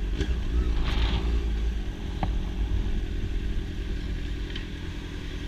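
Honda CB650's inline-four engine running at low road speed, its drone easing off slightly as the motorcycle slows; a faint tick about two seconds in.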